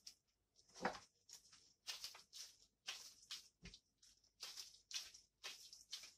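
Faint repeated rustling and swishing of disposable gloves as hands roll soft cookie dough into balls, with a soft thud about a second in and a low knock a little before four seconds.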